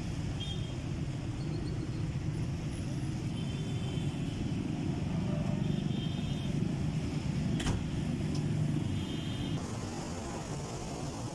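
Low, steady rumble of road traffic that swells as a vehicle passes in the middle, with a few short high chirps and one sharp click.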